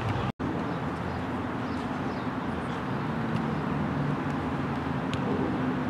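Steady outdoor background noise with a low hum, broken by a brief dropout near the start.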